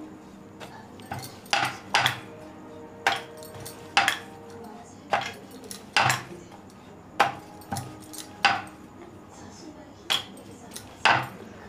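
Rolling pin and round rolling board clacking against the countertop as bhatura dough is shaped and rolled out: sharp, uneven knocks about one or two a second.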